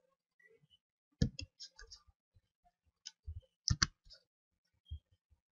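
Computer mouse clicking: a series of short, irregular clicks in small clusters, some with a duller low knock.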